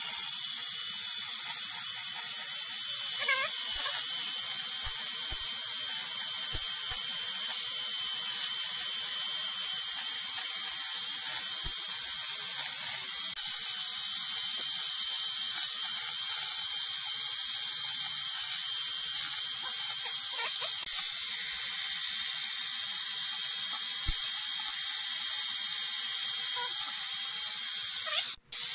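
Chainsaw running and cutting into a log, played back at double speed so it sounds like a steady, high-pitched buzz. It drops out for an instant near the end.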